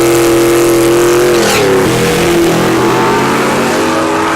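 Drag racing car's engine at high revs with a steady pitch. The pitch sags briefly about a second and a half in, then holds again.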